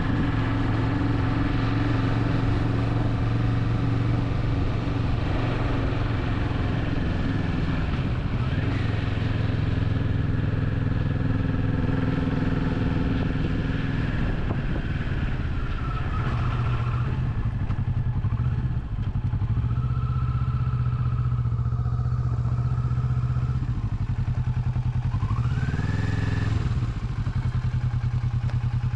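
Motorcycle engine running steadily under way, its note shifting a few times as speed changes, with a short rise in revs near the end.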